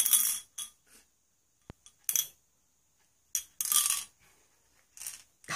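Glass marble rattling and clinking inside a Ramune bottle as the bottle is shaken and turned, in several short bursts with pauses between them.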